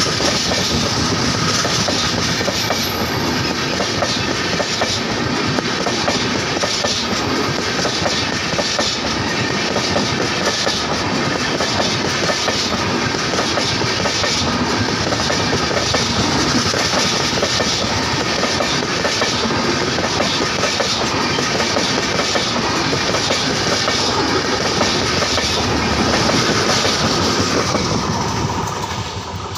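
Brindavan Express passenger coaches running past at speed, a steady loud rush and rattle of wheels on the rails. The noise starts to fall away near the end as the last coach goes by.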